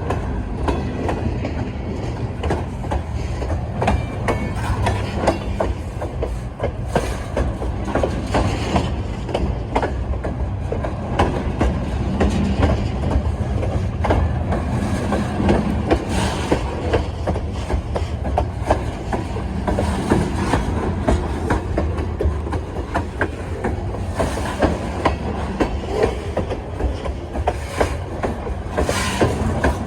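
Freight train rolling past: a steady rumble of the cars with a continuous clickety-clack of wheels over rail joints.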